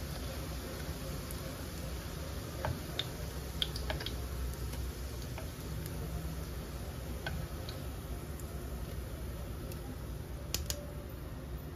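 Fritters frying in hot oil in a pan, a steady hiss, with scattered light metallic clicks as metal tongs lift them into a wire-mesh strainer; a pair of sharper clicks comes near the end.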